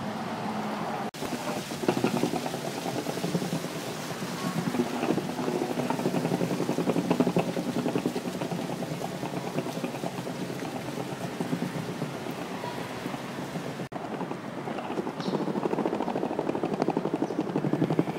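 Skateboard wheels rolling over brick paving stones: a steady rumble with rapid clicks as the wheels cross the joints.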